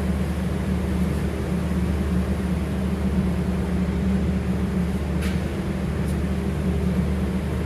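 Steady low mechanical hum, with a couple of faint light clicks near the end.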